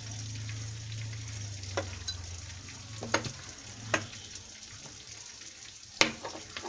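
A hand rubbing and pressing an eggplant slice into chili powder and salt on a hard plate, with a few sharp knocks against the plate, the loudest about six seconds in. Under it is a faint steady frying hiss, and a low hum that fades out about three seconds in.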